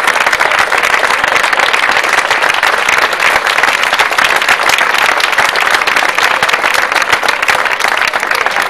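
A crowd of people applauding, with dense, steady clapping throughout.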